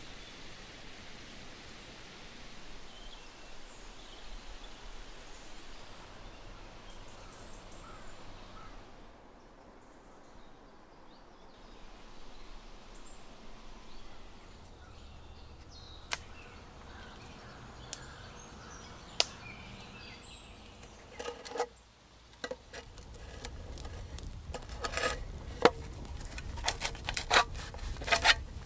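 Outdoor background hiss with a few sharp clicks, then a quick run of knocks and rubbing in the last few seconds.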